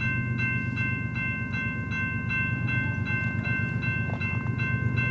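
Railroad grade crossing bell ringing steadily, its clang repeating nearly three times a second, warning that a train is approaching. A low steady rumble runs underneath.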